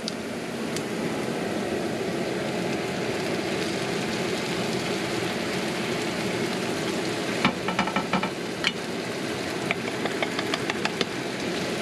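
Frying pan of onions sizzling steadily as black beans are added. A run of sharp clinks and scrapes starts about seven and a half seconds in.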